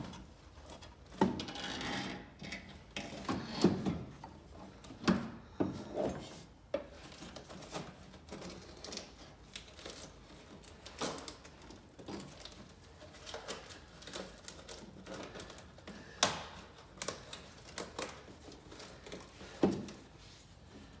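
Irregular clicks, knocks and clatter of metal parts and hand tools being handled while a heater core and its fittings are put in by hand, with a few sharper knocks spread through.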